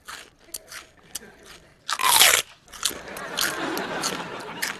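Loud crunching and chewing of a crunchy snack eaten from a bag: a run of sharp crunches, loudest about two seconds in.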